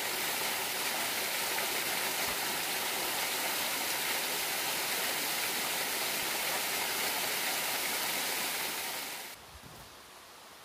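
Small waterfall pouring onto rocks close by: a steady rush of water. It cuts off suddenly about nine seconds in, leaving a much quieter outdoor hiss.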